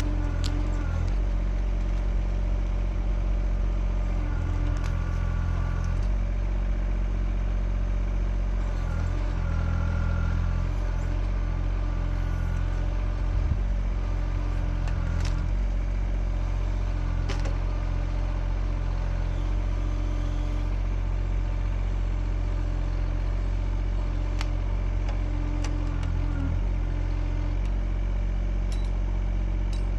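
Kymron XH20D mini-excavator engine running steadily under hydraulic load while it works a tree stump out of the ground. The engine note shifts several times as the controls are worked, with scattered clicks and clatter.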